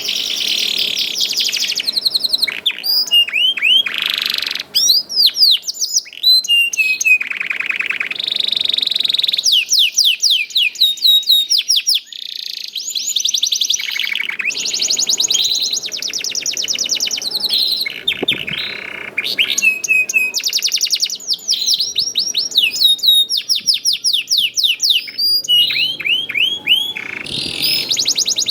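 Canary singing a long, continuous song made of runs of fast, repeated sweeping chirps and buzzing rolled trills, changing from one phrase to the next with only brief breaks.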